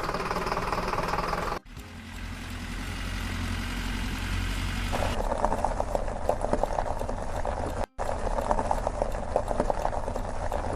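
Engine sound of construction machinery running, a steady low rumble. It drops out briefly about a second and a half in and again near eight seconds, and from about five seconds a rattling clatter joins it.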